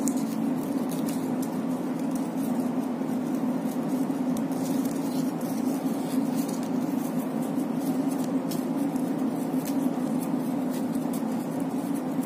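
Paper rustling and faint ticking as a spiral-cut paper circle is rolled around a pencil into a flower, over a steady low hum.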